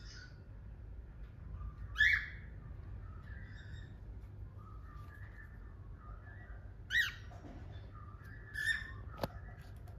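Cockatiel chattering softly at its reflection, with quiet warbling notes broken by two loud, sharp chirps about two and seven seconds in and a shorter one near the end. There is one sharp click just before the end.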